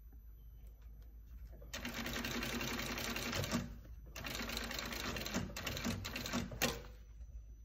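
Industrial sewing machine stitching a new palm onto a hockey glove's finger, running in two bursts of about two seconds each with a short pause between, beginning a couple of seconds in.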